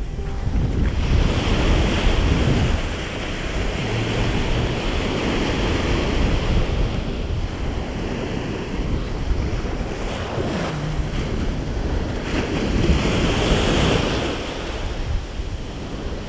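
Ocean surf breaking and washing up a sandy beach, the rush of water swelling and easing, with wind buffeting the microphone as a low rumble.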